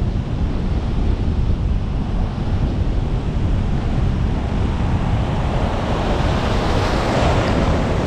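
Heavy ocean surf breaking and rushing, with strong wind buffeting the microphone. Over the last few seconds a big roller surges in, its rush growing louder, washing up to chest height around the wader.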